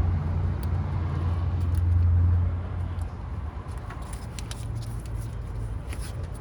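Low rumble of a passing motor vehicle that swells and then fades about three seconds in, followed by a few light clicks and taps.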